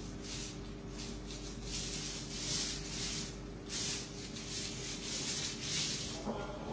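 Paint roller loaded with thinned white emulsion paint rolling up and down over bare, rough cement, making repeated rasping swishes about one or two a second.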